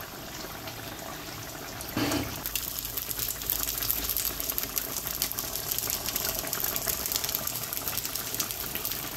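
Liquid rushing steadily with a fine crackle, becoming suddenly louder about two seconds in.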